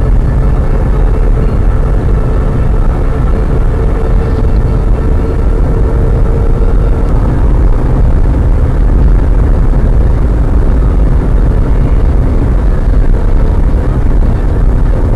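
A car travelling at highway speed, about 95–98 km/h, giving a loud, steady low rumble of road and wind noise. A faint steady hum fades out about halfway through.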